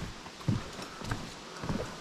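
Footsteps of a hiker in walking boots on a path, two heavy thuds about a second apart.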